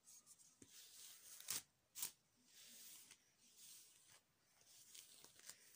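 Hairbrush strokes through long hair: faint scratchy swishes, repeated irregularly about once a second, with a few light ticks.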